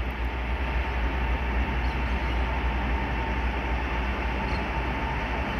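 Diesel-electric GE Dash 9-40BBW locomotives at the head of a pulp train approaching, a steady low rumble with a thin steady whine above it.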